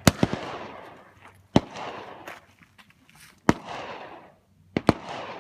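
Pistol fired outdoors: four sharp shots about one and a half to two seconds apart, each trailing off in echo, with a fainter crack just after the first and another just before the last.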